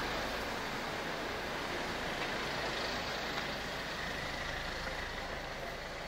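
Road traffic on a city street: cars passing, a steady noise that slowly eases off toward the end.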